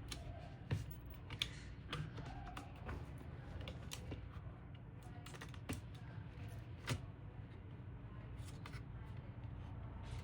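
Irregular light clicks and taps of hands handling small computer parts during a fan replacement, over a steady low hum.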